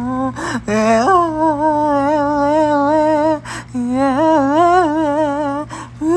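A person humming long, wavering notes, with three short breaks.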